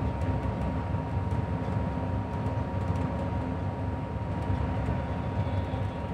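Moving coach bus heard from inside near the front: a steady engine and road drone, with a thin constant whine over it.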